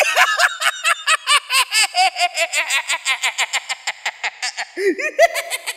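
A long, rapid cackling laugh, about six or seven 'ha's a second. It is the killer doll Chucky's laugh, as voiced in the comic dub. A fresh, louder burst of cackling comes near the end before it trails away.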